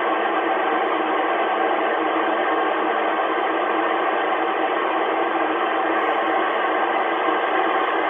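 Steady hiss of an Icom IC-7300's receiver in FM mode on the 4 m band, squelch open with no signal coming in.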